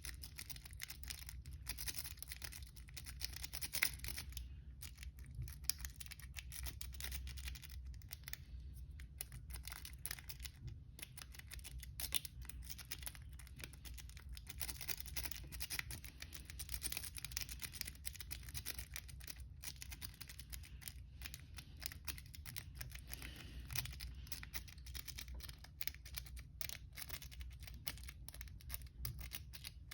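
Rake pick scraping over the pins inside an old, dirty Kwikset pin-tumbler lock under tension: a faint, continuous rapid scratching and ticking, the lock not yet open.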